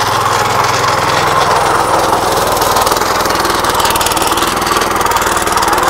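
Petrol power weeder (walk-behind rotavator) engine running steadily under load with a fast, even beat, its rotary tines churning through soil.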